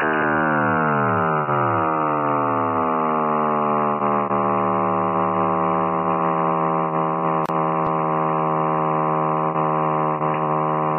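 Buzzy, many-toned signal tone heard through an SSB radio receiver's audio on the 13 cm (2320 MHz) band. Its pitch slides steadily downward for the first three seconds or so, then holds steady and loud.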